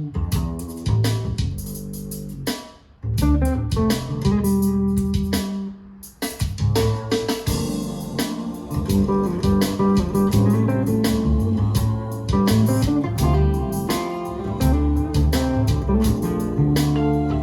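Guitar music: quick plucked guitar notes over a bass line, with two brief breaks in the first six seconds.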